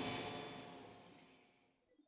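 Table saw running with a steady whine, fading out over about a second and a half.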